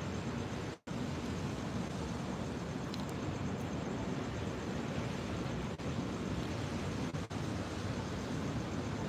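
Steady rushing of floodwater pouring from a broken water main, with a brief dropout in the sound about a second in.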